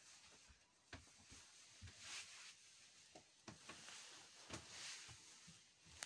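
Near silence: faint room tone with a few soft knocks and brief rustles from the phone being carried and handled.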